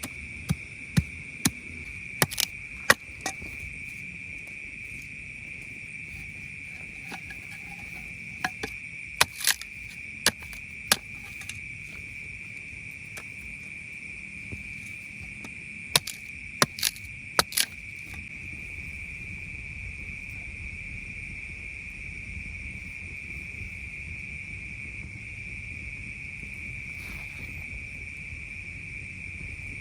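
Steady, high-pitched chorus of night insects, with about fifteen sharp clicks in short clusters in the first half.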